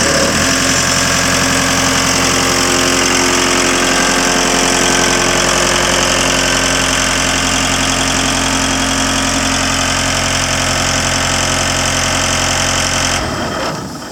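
Atlas Copco 185 portable air compressor's John Deere 4024 four-cylinder diesel engine running at a steady idle. The low engine note drops away near the end.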